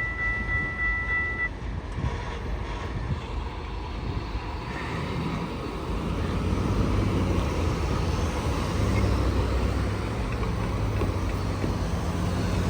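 A railway level-crossing bell rings and stops about a second and a half in. Steady road-vehicle rumble follows, with engine hum swelling toward the middle.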